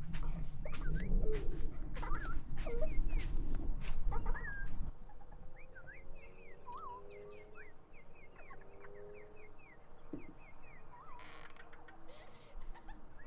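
Many short, quick bird-like chirps over a low rumbling drone with clicks, which cuts off suddenly about five seconds in; the chirps carry on after it, quieter.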